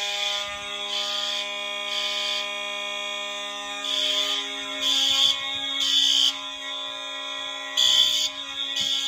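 Several fire alarm horns sounding together on a test panel: steady horn tones run underneath, while a louder buzzy horn sounds in the temporal-three evacuation pattern, three half-second blasts then a pause, repeating.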